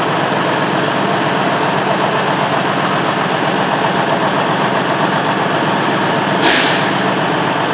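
Detroit DD15 inline-six diesel in a Freightliner Cascadia running steadily at idle, an engine logged with an injector 4 fault and white smoke. About six and a half seconds in, a short sharp hiss of air cuts through it.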